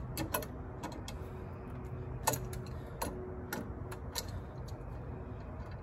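Scattered light metallic clicks and ticks as hex jam nuts are worked on the threaded rod end of a steel treehouse strut, the loudest a little over two seconds in.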